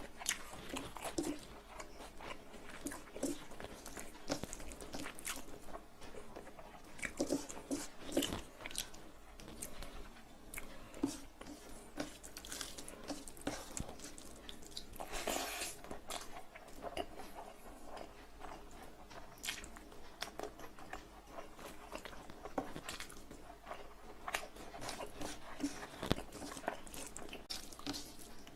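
Close-miked chewing and biting of mouthfuls of fried rice and chicken curry: wet mouth smacks and irregular crunchy clicks throughout.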